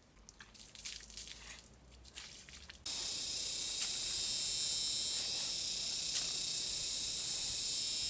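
Scraping and scuffing strokes of soil being dug and scooped. About three seconds in, a loud, steady, high-pitched insect drone takes over, with a couple of light clicks as pieces of charcoal are handled.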